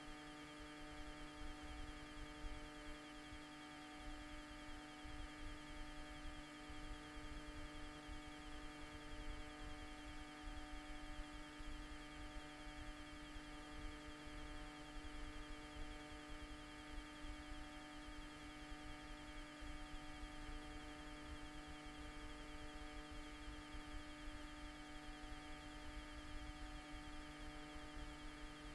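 A steady electrical hum made of several held tones that never change, over a low, uneven rumble.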